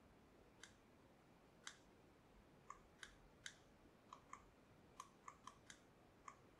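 About a dozen faint, sharp clicks at irregular intervals, some in quick pairs, from small plastic parts of a vape box mod being handled and pressed.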